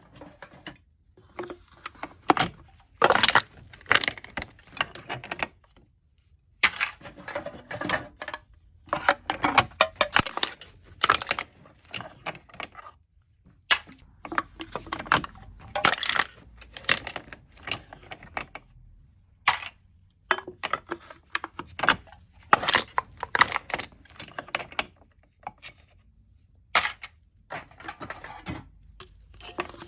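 Aluminium drink cans being crushed, the metal crinkling and crackling in repeated bursts of sharp clicks with short pauses between them.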